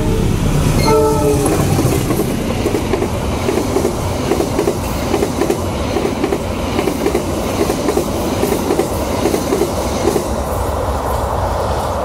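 Diesel locomotive horn sounds two short blasts, then a passenger train rumbles past with a repeated clickety-clack of wheels over rail joints, about two knocks a second.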